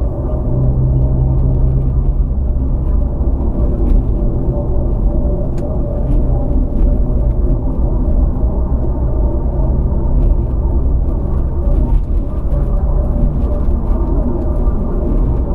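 Land Rover Freelander driving along at a steady pace: a continuous low rumble of engine and road noise with a steady hum, and a few faint brief clicks.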